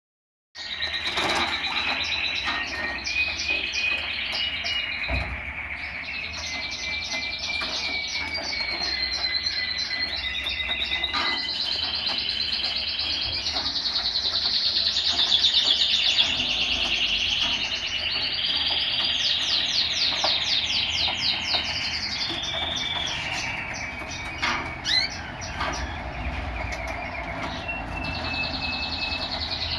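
Male black red mosaic canary singing a long, unbroken song of fast trills and rolls, with runs of rapidly repeated notes that change every second or two.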